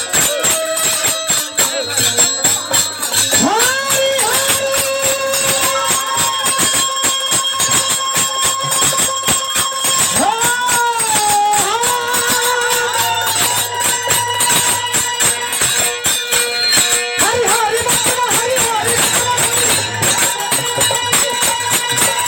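Bhojpuri folk music: a held melody line that slides between sustained notes, over fast, continuous jingling percussion.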